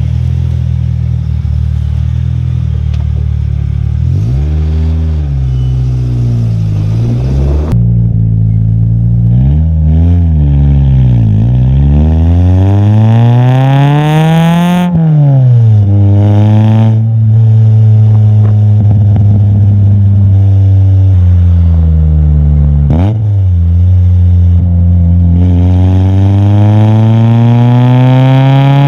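VW Jetta Mk2 engine and exhaust, given a few short revs while standing, then pulling hard through the gears. The pitch climbs and drops sharply at each gear change, about halfway through and again near the three-quarter mark, with a stretch of steady cruising in between.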